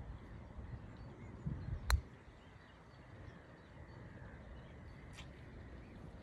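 A 3-wood, used as a putter, strikes a golf ball on the green: one sharp click about two seconds in.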